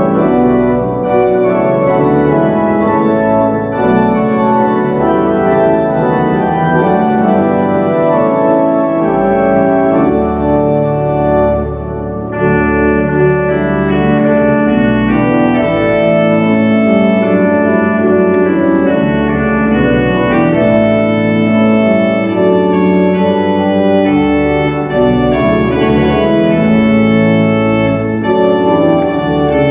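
Church organ playing a hymn in sustained full chords on the manuals, with pedal bass underneath. The chords break off briefly about twelve seconds in, then carry on.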